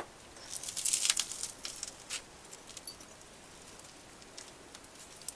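Crisp crackling rustle of food being handled at the breakfast table, most of it in the first two seconds, followed by a few faint light clicks.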